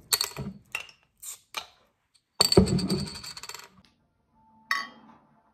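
Glass beer bottles and their metal caps clinking and rattling on a hard surface: a few light clinks, then a longer ringing rattle about two and a half seconds in.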